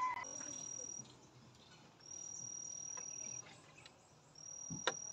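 A high, steady insect trill, heard in three stretches of about a second each, with one sharp click near the end.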